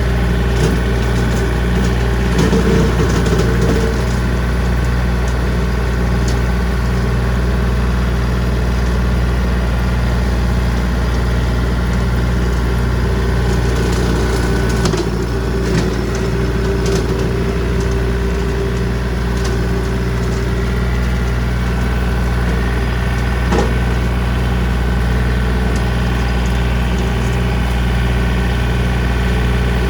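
John Deere 3025D compact tractor's three-cylinder diesel running steadily under load, driving a brush hog (rotary cutter) through brush. A few sharp cracks come through as the blades hit sticks.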